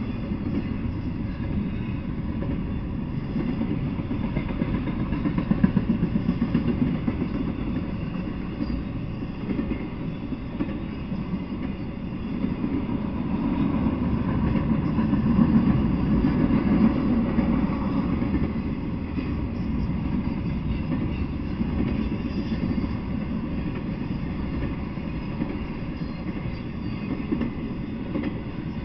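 Intermodal freight train of trailers and stacked containers rolling past at speed: steady noise of steel wheels on the rails, swelling louder twice, about five seconds in and again around the middle.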